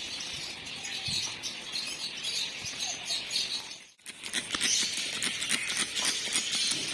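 Small pet birds chirping in their cage over a steady hiss. After a brief drop-out about four seconds in, quick clicking and scratching sounds come thickly.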